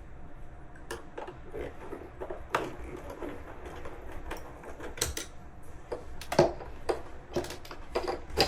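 Irregular clicks, taps and scrapes of a screwdriver working the air hose connection on the engine's plastic intake, loosening the hose clamp. Two louder knocks come in the second half.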